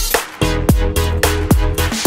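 Electronic background music with a steady beat of about four drum hits a second, thinning out briefly just after the start.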